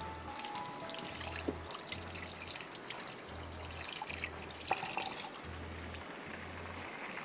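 Chicken pieces deep-frying in a pan of hot oil: a steady crackling sizzle with a few sharp pops.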